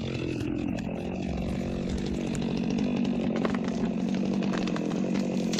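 Chainsaw engine running at a steady pitch, getting somewhat louder about two seconds in.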